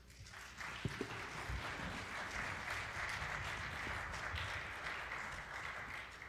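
Congregation applauding. The clapping swells just after the start, holds steady and dies away near the end.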